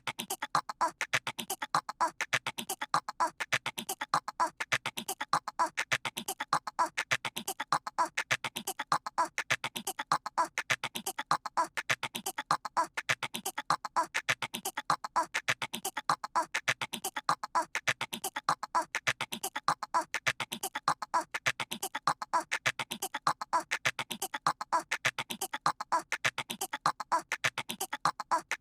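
A cartoon toddler's voice doing squirrel noises: rapid chattering clicks in a short pattern repeated over and over as a loop.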